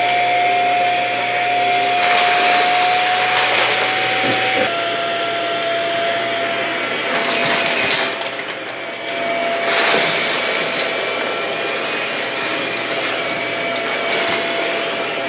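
Cordless stick vacuum running with a steady, high motor whine as its powered brush head is pushed over a rug. Two stretches of gritty rattling, as the head passes through the dry crumbly debris, swell over the whine, one about two seconds in and another from about seven to ten seconds in, with a brief drop in loudness partway through the second.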